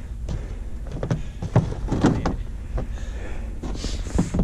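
Boots knocking and scuffing on a snow-covered pickup truck bed and tailgate, a handful of irregular thumps with rustling between them.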